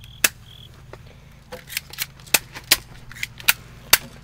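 Airsoft guns firing single shots: about ten sharp pops at an uneven pace, one near the start and the rest coming quickly in the last two and a half seconds.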